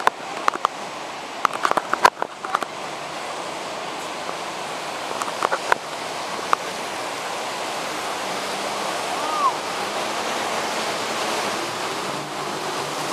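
Whitewater of Lava Falls rapid on the Colorado River rushing, a steady roar that slowly grows louder as the raft drifts into it. A few sharp clicks or knocks come in the first few seconds.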